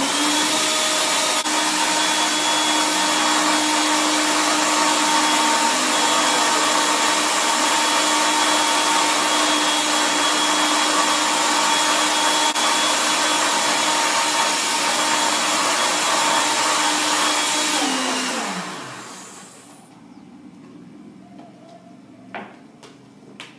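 White countertop electric blender running steadily at high speed, blending a smoothie, for about eighteen seconds; then it is switched off and the motor whine falls in pitch as it spins down. A couple of light knocks near the end.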